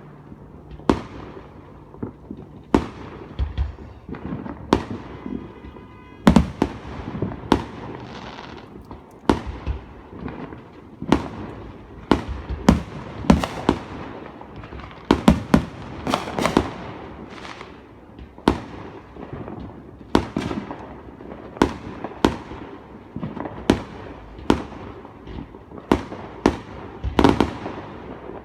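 Fireworks exploding in a steady barrage: sharp bangs every second or so, each trailing off in an echoing rumble, with rapid clusters of several bangs now and then.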